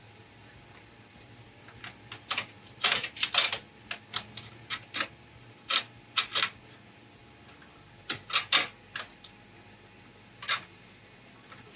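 Irregular clinks and knocks of steel in clusters, from about two seconds in until near the end: the Anvil Foundry 10.5's malt basket and its support ring knocking against the kettle as the ring is worked into place.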